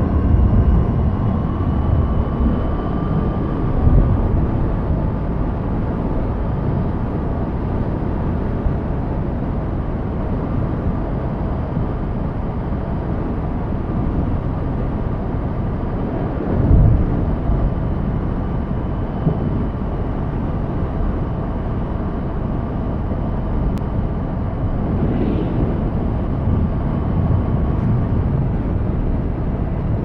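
Aprilia RS 457's parallel-twin engine running at a steady cruise, buried under heavy wind rumble on the camera microphone, with a brief louder gust about halfway through.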